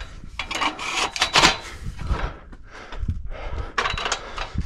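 Aluminium ladder being handled and leaned against a house wall: a run of irregular scrapes and rubbing, with a few sharp knocks of metal.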